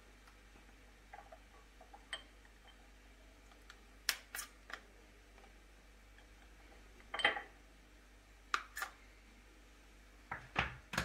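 Table knife scraping butter out of a plastic tub and tapping against a small ceramic dish: a scattering of light clicks and knocks, the sharpest about four and seven seconds in.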